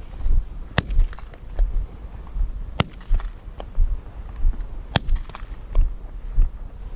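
Three sharp cracks, about two seconds apart, with a few fainter clicks, over uneven low thudding and wind noise on the microphone.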